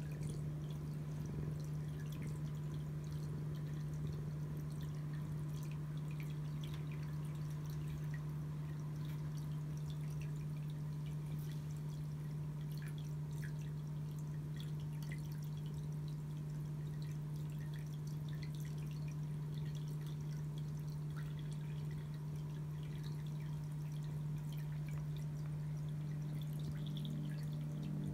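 A steady low hum with faint, scattered ticks over it.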